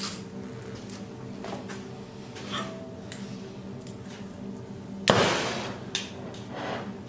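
Oxy-acetylene welding torch being lit: small handling clicks, then about five seconds in the gas catches with a sudden loud whoosh and settles into the steady hiss of the flame.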